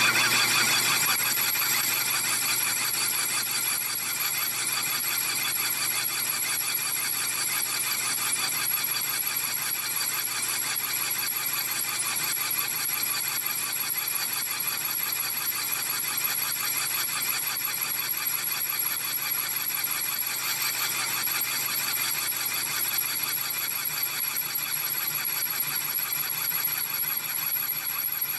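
Metal lathe turning the face of a large steel clutch hub, the cutting tool giving a steady high-pitched ring with a fast pulsing, loudest in the first second.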